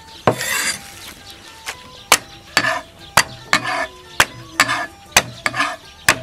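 Chinese cleaver chopping fresh ginger on a thick wooden chopping block: sharp chops about twice a second, some followed by a brief crunch.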